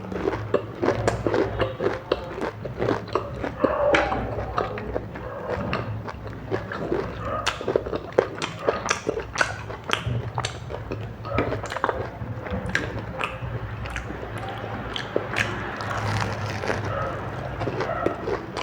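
Close-miked eating sounds: biting and chewing, with many short sharp crunches and wet smacks throughout.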